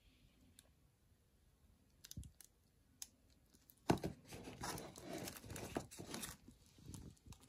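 Thin plastic containers crinkling and clicking as they are handled and set down. A few faint clicks come about two seconds in, then a louder stretch of crinkling and clacking from about four to six seconds.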